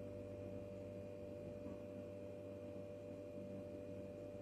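A faint, steady hum made of a few constant tones.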